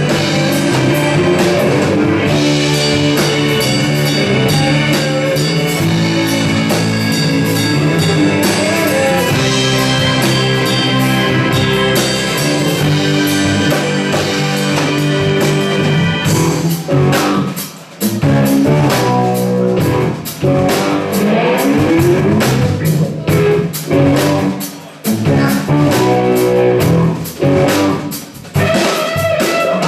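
Live rock band playing, guitar and drum kit. Dense, steady playing for about the first half, then a stop-start passage of sharp hits broken by short gaps.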